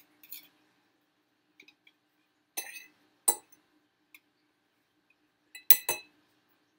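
Flat metal grater clinking against a glass cup to knock grated orange zest off it: a few sharp clinks, the loudest a quick pair near the end.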